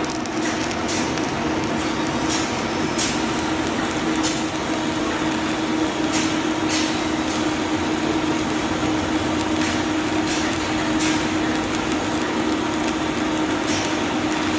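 Electric arc welding on the steel furnace opening of a fire-tube boiler: a steady crackling hiss with irregular sharper pops, over a steady low hum.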